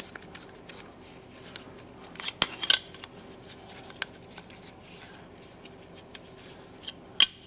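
Small shock-absorber parts being handled and fitted together on a workbench: scattered sharp clicks and clinks, a cluster of them about two and a half seconds in and the loudest single click near the end.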